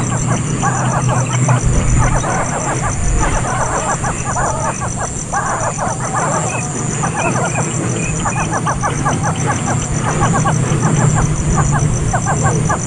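Birds chirping, a rapid, busy run of short notes throughout, over a steady low hum.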